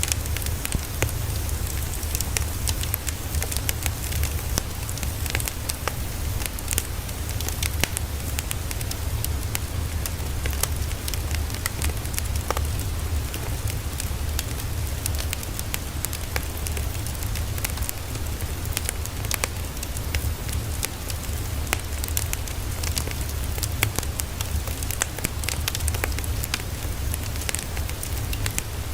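Dense, steady crackling and pattering: many small irregular ticks over a constant low hum, serving as white noise.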